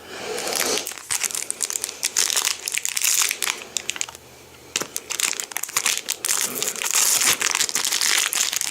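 Foil wrapper of a Yu-Gi-Oh Battle Pack 2 booster pack crinkling as it is handled and torn open: a dense run of crackles, with a short pause about halfway through.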